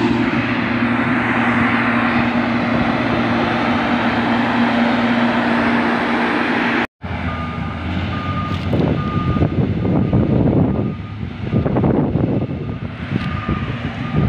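Motor grader's diesel engine running steadily close by. After a cut about halfway, the grader is farther off, and its reversing alarm beeps again and again over the engine.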